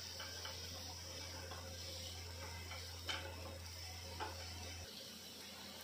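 Wooden spatula stirring and tapping in a nonstick frying pan while an onion, ginger, garlic and green-chilli paste is sautéed in oil, giving a few light clicks over a faint steady hum.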